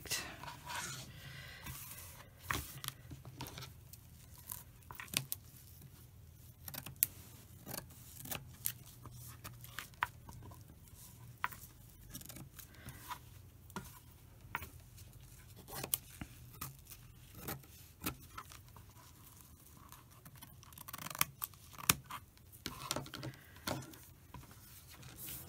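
Fabric scissors snipping through cotton quilt fabric as blocks are trimmed: many short, crisp cuts at an irregular pace.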